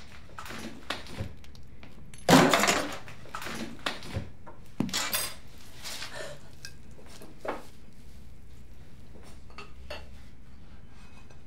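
Dishes and cutlery clattering, loudest in one burst about two seconds in, followed by scattered clinks and knocks.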